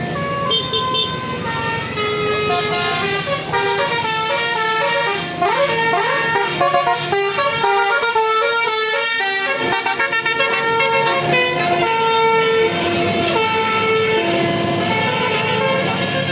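A bus's telolet basuri musical air horn plays a long, fast melody of stepped horn notes that hop from pitch to pitch several times a second, with no break. A low engine rumble sits underneath.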